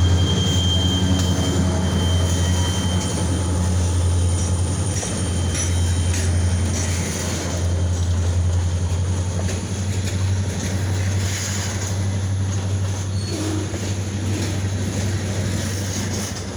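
Freight train rolling past with a steady low rumble. A thin, high wheel squeal sounds in the first second or so.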